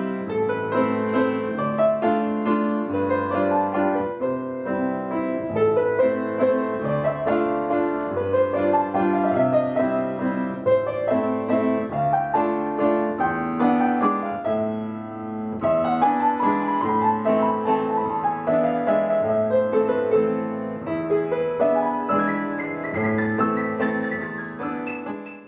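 Piano playing a slow, melodic piece, fading out near the end.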